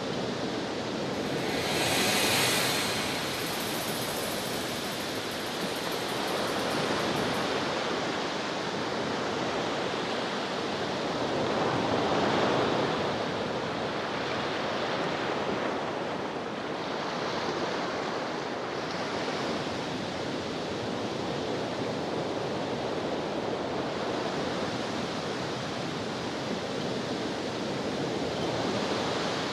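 Ocean waves washing ashore: a steady rush of surf that swells and eases every few seconds.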